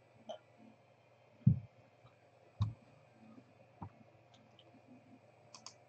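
A few scattered clicks and knocks of handling at a desk: two louder, dull low knocks in the first half and lighter sharp clicks later, over a faint steady hum.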